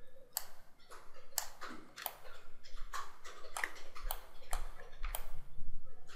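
Computer mouse and keyboard clicking: about a dozen short, sharp clicks at uneven intervals.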